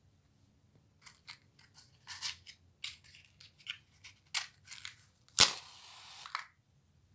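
Crisp rustling and clicking of things being handled, a string of short sharp sounds that starts about a second in. About five and a half seconds in comes one loud snap, followed by about a second of rustling.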